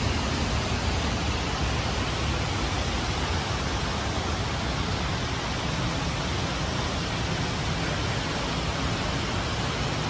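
A steady, even rushing noise with a strong low rumble, unbroken throughout.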